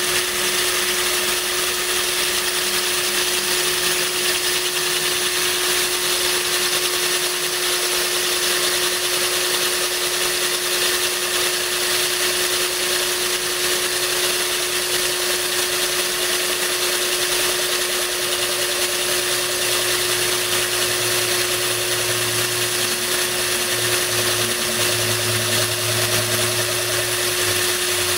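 Cordless drill running steadily as its bit grinds into a glass kombucha bottle, with water from a hose nozzle pouring over the cut to cool it. A steady motor whine over the hiss and splash of the water, with a lower hum joining in about two-thirds of the way through.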